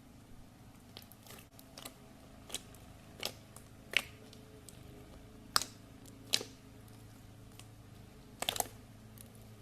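Slime clicking and popping as it is pressed and stretched: scattered sharp pops, about nine in all, the loudest about four and five and a half seconds in, with a quick cluster near the end.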